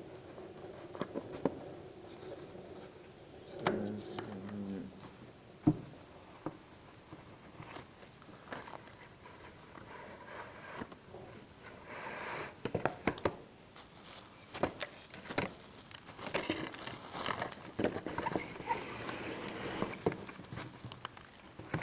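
Scattered light knocks, clicks and rustling of things being handled on a table, with one sharper knock about six seconds in and a brief low hum around four seconds in; the clicks come thicker in the second half.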